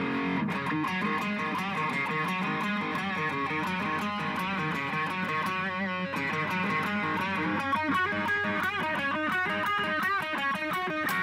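Electric guitar playing a tune, a melody of quick notes that change rapidly, busiest in the second half.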